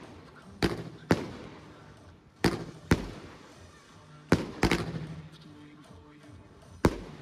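30 mm firework cake (Alpha Fireworks Venom) firing shots: sharp loud bangs, mostly in pairs about half a second apart, a pair every second and a half to two seconds, each trailing off in a short echo.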